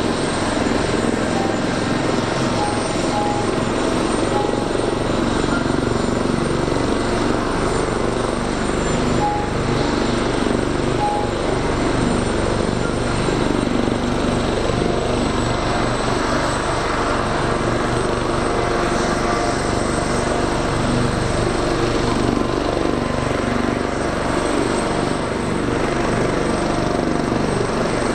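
Steady turbine noise from military helicopters preparing to start, an AH-64D Apache Longbow and an OH-1: a dense, even rumble with a thin high whine over it.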